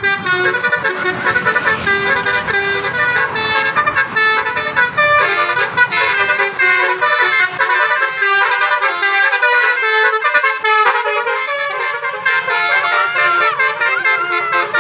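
Bus's Basuri multi-tone 'telolet' horn playing a fast melody of quick stepped notes, loud and unbroken.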